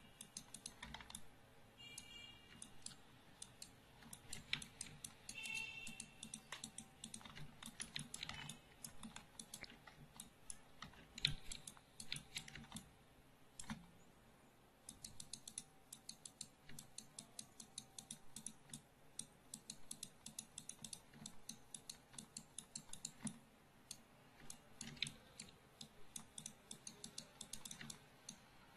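Faint, irregular clicking of a computer keyboard and mouse, in quick runs that are thickest in the second half, with a short pause about halfway.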